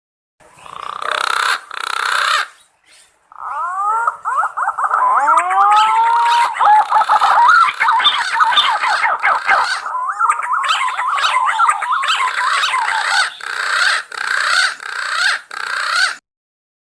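Punai (green pigeons) calling: a long run of overlapping whistled notes that glide and curve up and down around one pitch, after two short bursts near the start.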